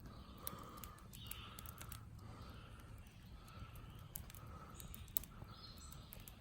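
Faint bird calling, a short even note repeated over and over, a little faster than once a second, with a few light clicks.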